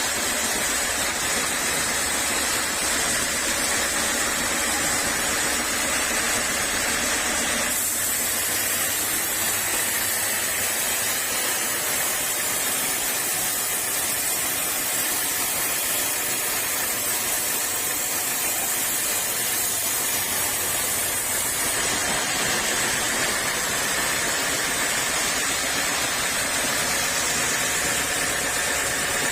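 Sawmill saw running with a steady, hissing machine noise as teak is sawn into beams; the sound changes abruptly about eight seconds in, losing some of its low hum, and changes back about twenty-two seconds in.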